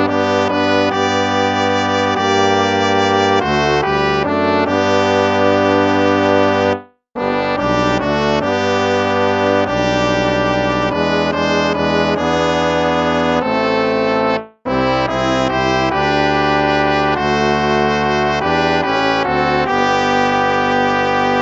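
Instrumental hymn music played in sustained, chord-like notes, with two brief silences between phrases, about seven and fourteen and a half seconds in.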